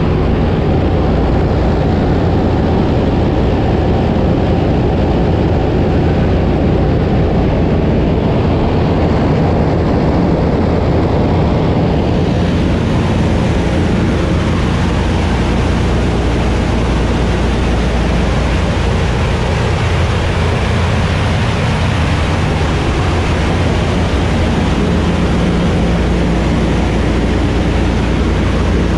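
Steady drone of the PBY-5A Canso's two Pratt & Whitney R-1830 Twin Wasp radial engines in cruising flight, heard from inside the hull with loud rushing air. The hiss gets brighter about twelve seconds in.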